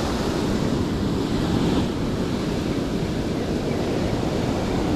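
Sea surf washing in steadily, with wind buffeting the microphone.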